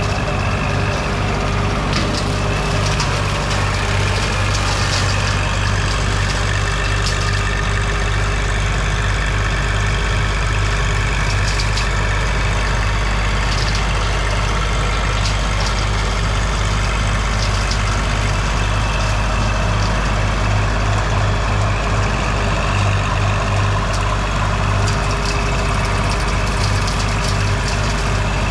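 Kubota L2502 compact tractor's diesel engine running steadily, with a few faint sharp clicks over it.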